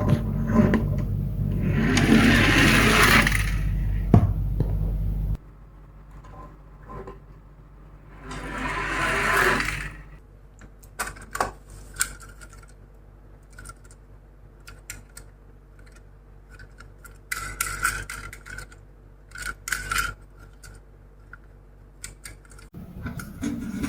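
Miniature toy cars rolling and scraping down a slope in two bursts, about two seconds in and again near nine seconds, followed by scattered clicks and knocks. A steady low hum runs for the first five seconds and cuts off suddenly.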